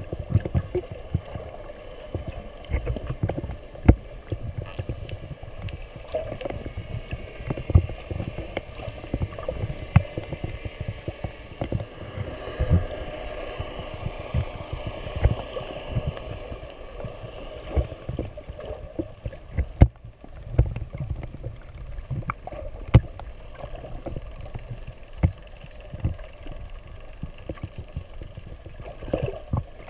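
Underwater sound picked up by a snorkeler's camera just below the surface: muffled water sloshing with frequent short, low thumps and knocks, and a few faint, short high chirps.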